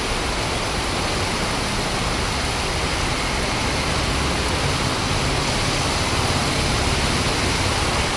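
Heavy rain falling in a steady downpour, a dense even hiss. A low hum from a vehicle engine joins about halfway through.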